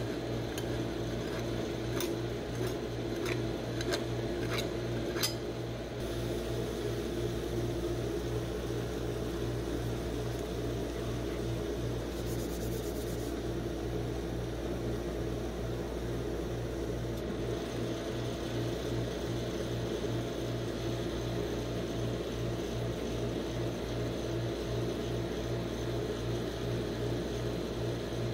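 Steady hum of a rolled-ice-cream machine's refrigerated cold plate, its compressor and fan running. About six light clicks of a metal spatula tapping on the steel plate in the first five seconds.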